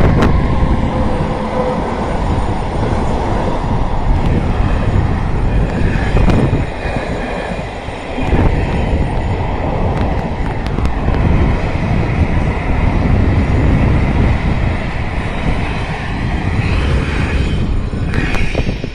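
ONCF electric locomotive E-1412 and its passenger coaches passing close by, the wheels running loudly over the rails with a steady high whine. The noise falls away sharply near the end as the last coach goes by.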